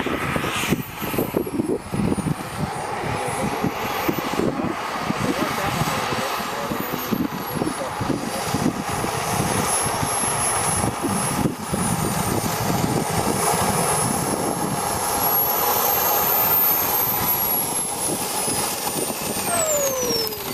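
Small turbine engine of a model sport jet whining steadily under rushing noise, its high pitch wandering up and down with throttle. Near the end the whine falls steeply in pitch as the turbine spools down.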